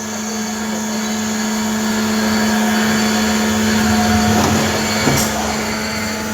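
CNC lathe running with a steady machine hum and hiss, with a brief click about five seconds in.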